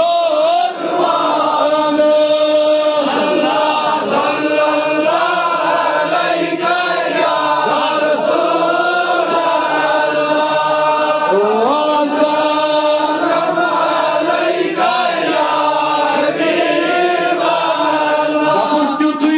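A man chanting a religious recitation in long, drawn-out melodic phrases.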